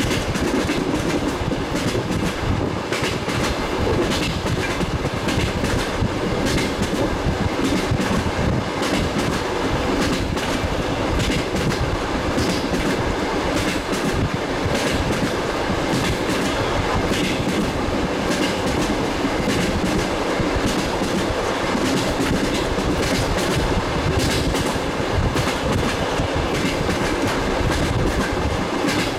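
Clickety-clack of a suburban passenger train's wheels over the rail joints, heard from inside a moving carriage: a steady rolling rumble with a continuing run of sharp knocks.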